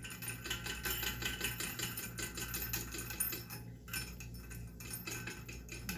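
Rapid small metallic clicks and rattling as a washer and nut are worked onto a toilet's closet bolt, with a brief pause about two-thirds of the way through.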